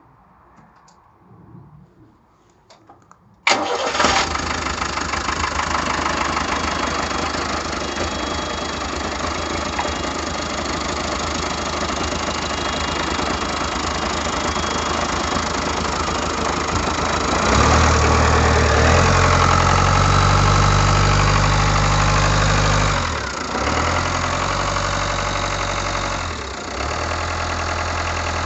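Mid-1980s Ford Transit van engine firing into life suddenly about three and a half seconds in, then running steadily. Well past the middle it runs faster and louder for several seconds, then drops back, dipping briefly twice before settling.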